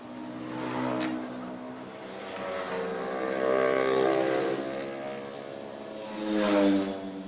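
A motor vehicle's engine revving up and down, its pitch rising and falling with three swells in loudness.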